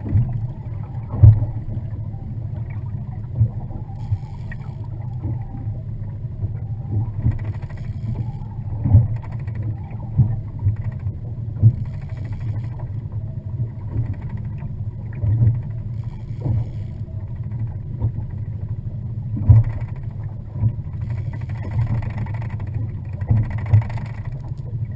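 Boat on open water: a steady low engine drone, with irregular knocks every second or few.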